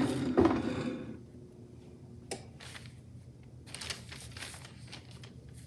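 Rustling and handling noises, loudest in the first second, with a sharp click a little over two seconds in and further scattered bursts of rustling later.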